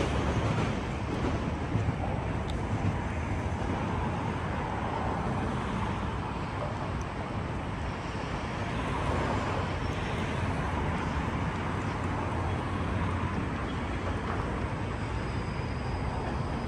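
Steady outdoor city rumble of distant vehicles, with no single clear source and no sharp events.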